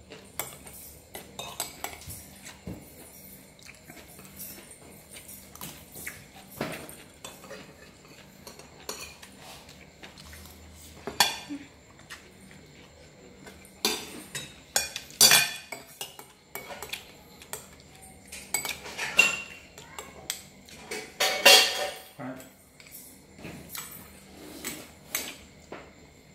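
Metal spoons clinking and scraping against plates as people serve themselves and eat. The clatters come irregularly, with louder clusters of knocks in the second half.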